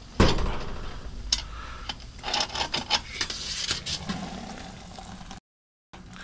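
Perforated aluminium boil basket full of cooked Dungeness crabs being lifted out of a stockpot on a stick: a knock as it is hooked, then scattered clanks and scrapes of metal against the pot. The sound cuts out for half a second near the end.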